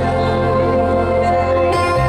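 Live pop ballad: a female singer holds a long note over sustained keyboard chords and a steady bass, heard from the audience of a concert hall.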